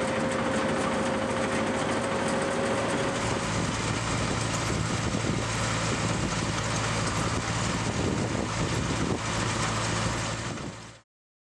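Self-propelled tomato harvester running steadily, its engine and conveyors making a constant mechanical din. A steady whine stops about three and a half seconds in, and the sound fades out near the end.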